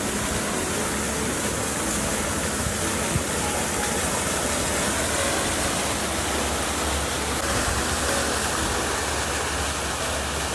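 Fountain with several tall water jets splashing down into its pool: a steady rush of falling water.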